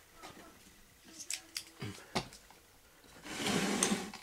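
Handling noise from the home-built disc of curved metal segments: a few light clicks and taps, then a louder scraping rustle lasting under a second near the end as the disc is slid and lifted off the bench.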